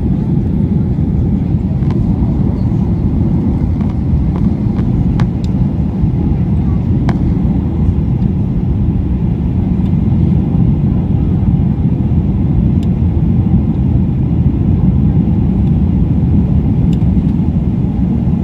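Boeing 737-800 with CFM56-7B engines during landing, making a loud, steady low rumble of engines and airflow. A few faint ticks sound over it.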